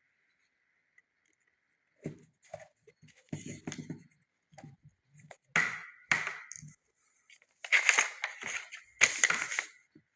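Handling noise from a metal ruffler presser foot and its packaging: irregular clicks, clinks and rustles that start about two seconds in and come in louder clusters toward the end.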